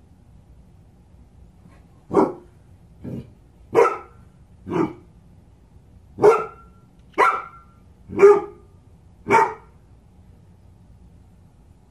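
A large dog barking, eight single barks about a second apart starting about two seconds in, the second one softer.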